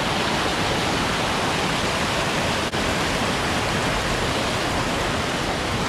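Steady noise of water pouring over a waterfall, with one momentary dropout about halfway through.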